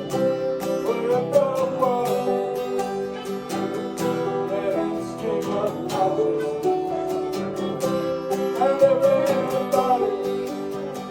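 Acoustic guitar played live, strummed in a steady rhythm with a melody line moving over the chords.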